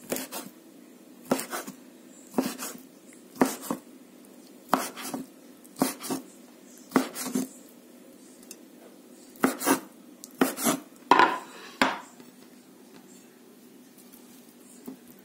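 Kitchen knife chopping salted herring into cubes on a wooden cutting board: sharp knocks of the blade on the board, mostly in pairs about once a second, stopping about twelve seconds in.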